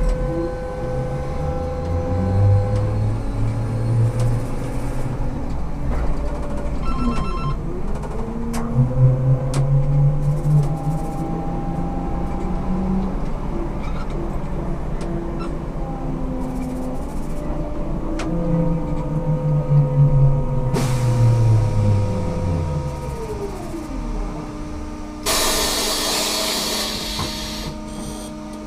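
Ikarus 280T trolleybus's GVM electric traction equipment whining in stepped tones that climb as it pulls away, climb again, then fall as it slows. Near the end comes a few seconds of compressed-air hiss.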